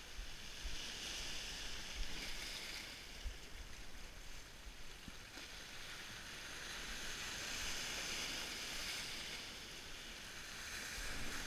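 Sea surf washing in among shoreline boulders: a steady hiss of foaming water that swells and fades a few times as the waves come in and draw back.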